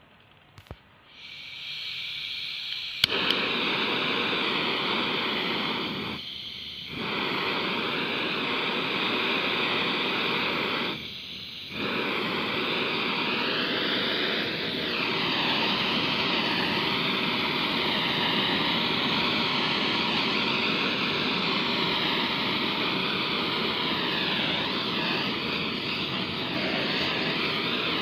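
Butane flame-gun torch on a gas canister: gas hissing, then a sharp click about three seconds in as it lights, and the flame burning with a loud steady rush. The rush dips briefly twice.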